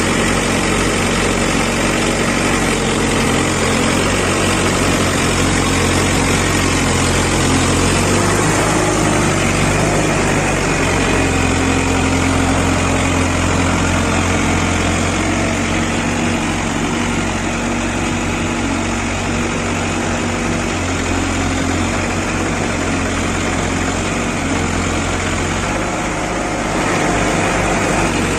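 Diesel engine of a JCB 5CX backhoe loader running steadily while it digs and loads sand, its note dropping and rising a few times as the load on it changes.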